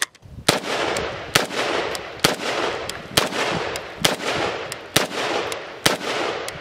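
Romanian CGR AK-47 rifle firing 7.62x39 steel-case ammunition in steady single shots, about one a second, each shot trailing off in echo.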